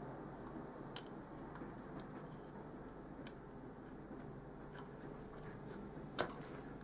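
Low steady room hum with a few light clicks, the sharpest about six seconds in: small contact sounds of a soldering iron tip and a hand on a circuit board during desoldering.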